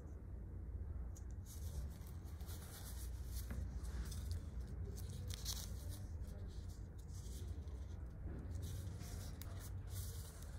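Short scraping strokes in irregular succession, over a low steady hum.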